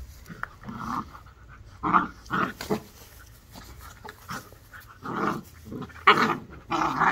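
Two puppies play-fighting, growling and panting in short bursts, the loudest near the end.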